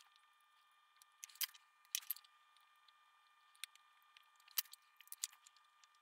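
Faint, scattered small clicks of metal tools on a circuit board: a soldering iron tip and a pick working loose the pins of an STK-0050 darlington power pack as it is desoldered.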